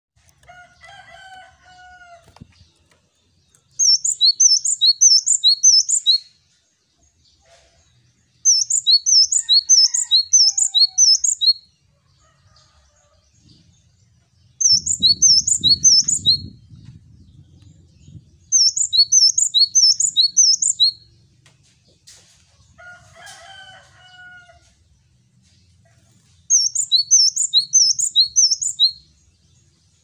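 Male cinereous tit (gelatik batu) singing in five bouts of a few seconds each. Each bout is a quick run of repeated two-note 'wucit' phrases, a high note and then a slightly lower one, about two phrases a second. Softer, lower calls of other birds fall in the pauses.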